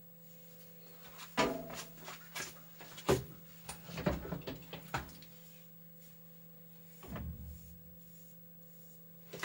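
A scattered series of knocks and clatter, like things being handled and set down, loudest about a second and a half in and again around three seconds. Another short bump comes near the end, all over a steady low hum.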